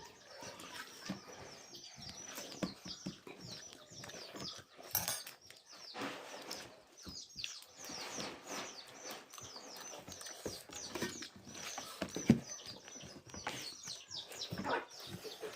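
Close-up eating sounds: chewing and wet lip-smacking, many small clicks and smacks in quick succession.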